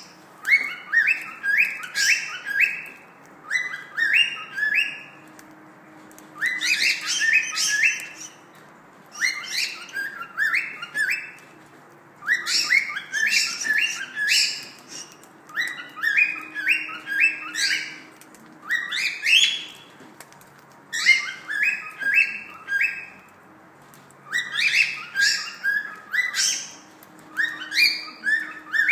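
Cockatiel chirping in repeated bursts of four to six quick, short notes, a new burst every two to three seconds.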